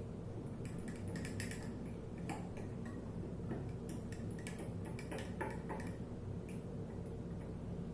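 Spoon clinking and tapping against a bowl while stirring a chia seed and coconut milk mixture: irregular light clicks over a faint steady hum.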